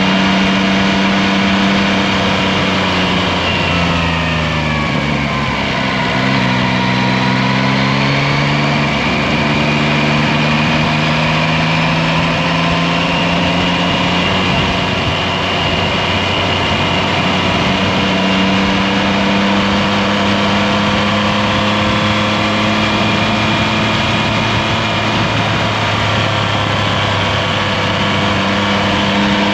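Yamaha Tracer 9 GT's 890 cc inline three-cylinder engine running on the road, under steady wind and road noise. Its pitch falls a few seconds in as the revs drop, then holds roughly steady.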